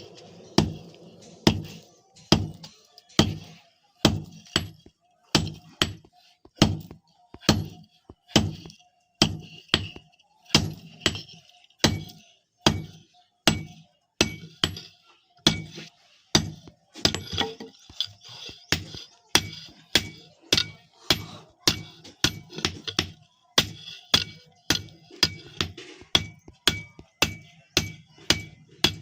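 Blacksmith's hand hammer striking an iron strip in steady, evenly spaced blows, about one and a half a second, each blow with a short metallic ring. These are the forging blows that shape the iron into a billhook blade.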